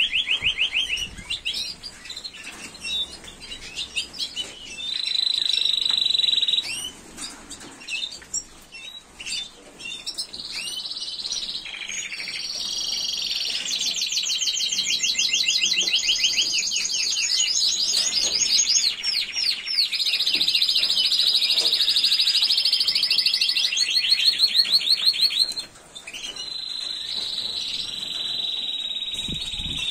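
Spanish timbrado canaries singing: long, rapid metallic trills, one phrase after another, each held a few seconds and then jumping to a new pitch. A few light clicks sound in the first half.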